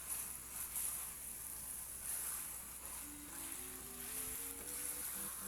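Thinly sliced chicken sizzling as it stir-fries in a hot pan, being stirred. Soft background music with a slow rising run of notes comes in about three seconds in.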